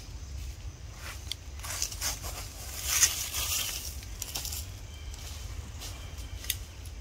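Dry fallen leaves crunching and rustling in scattered crackles, thickest and loudest about three seconds in, over a steady low rumble.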